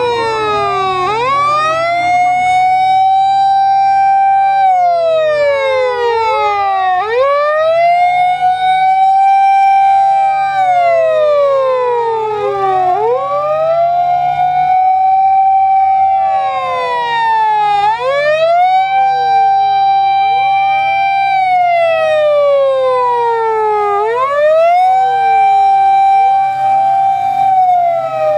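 Sirens of at least two Japanese fire-service emergency vehicles sounding together out of step, each rising, holding a steady tone, then sliding down again about every six seconds, over a low engine hum.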